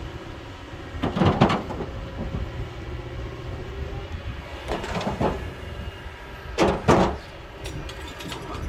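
Kobelco hydraulic excavator's diesel engine running steadily while it digs, with short bursts of rock scraping and clattering about a second in, near the middle and again about seven seconds in, the one at seven seconds the loudest.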